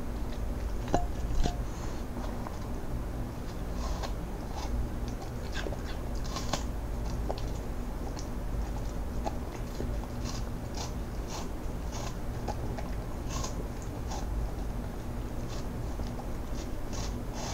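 Cocker spaniel chewing slices of raw apple: irregular crisp crunches, the loudest two about a second in.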